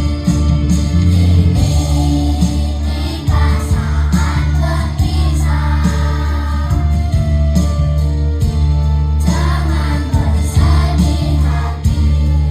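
Kindergarten children's choir singing a school farewell song in unison over instrumental backing with a steady bass line.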